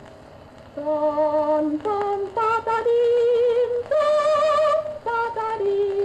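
A woman's solo voice singing a slow line of long held notes with a wide vibrato, on a 1929 gramophone recording; a short lull at the start, with the singing coming in about a second in.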